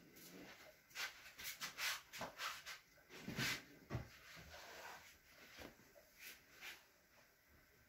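Two kittens play-fighting on a fabric sofa: quiet scuffling and rustling of paws and bodies against the upholstery, in quick irregular bursts that are busiest between one and four seconds in.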